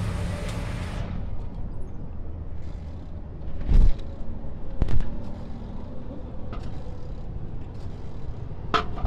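Street traffic rumbling steadily, with a hiss that cuts off about a second in and two loud knocks about a second apart near the middle.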